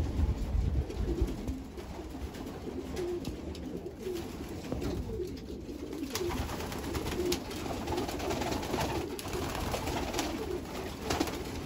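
A loft full of racing pigeons cooing, many low coos overlapping in a continuous chorus. Scattered light clicks and taps run through it, more of them in the second half.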